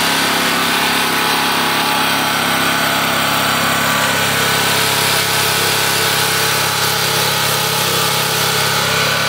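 Small open-frame portable generator's engine running steadily and loudly, heard close up. It is under load, powering the fish tanks' air blowers.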